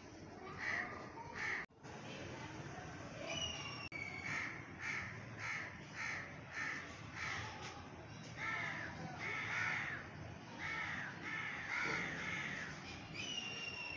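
Crows cawing in a quick series, about two harsh caws a second, with a short high whistled note from another bird twice.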